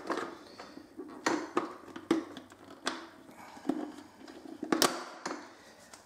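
Light plastic clicks and knocks, about half a dozen spaced roughly a second apart with two in quick succession near the end, from an Ecovacs Deebot 600 robot vacuum's plastic body being handled.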